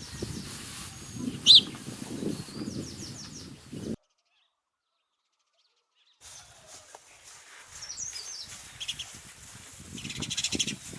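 House sparrows chirping: short, bright chirps in quick runs, with one loud chirp about a second and a half in and a fast buzzy run of chirps near the end. About two seconds of dead silence break it in the middle, and a low rumble of background noise lies under the calls.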